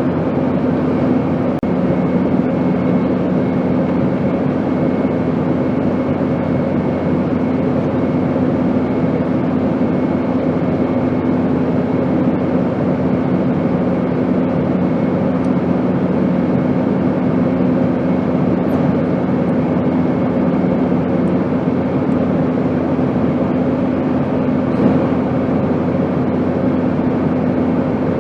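Airplane noise as a steady, unchanging drone: an even rush with a constant low hum and a faint high whine.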